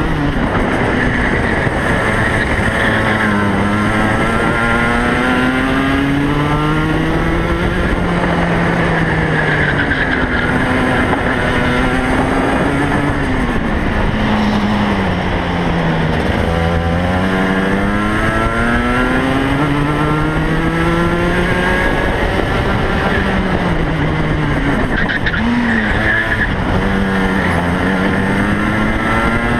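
Racing kart's two-stroke engine heard on board at full race pace. The revs climb steadily on the straights and drop sharply into the corners, over and over.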